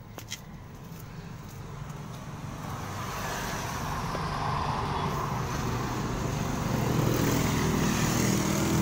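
Street traffic with cars passing, growing steadily louder over the first several seconds into a steady road noise.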